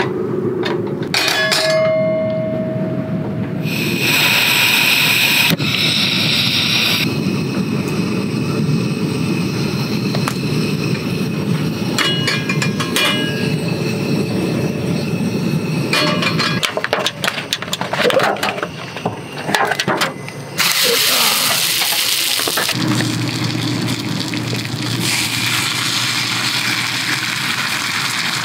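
Cooking on a tabletop gas stove: the burner runs under a frying pan of hot oil, with sizzling and hissing in stretches. Metal utensils clink against the pan a few times in the middle.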